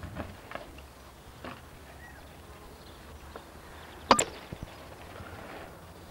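Old home-video soundtrack: a steady low electrical hum with a few faint clicks, and one sharp loud click about four seconds in.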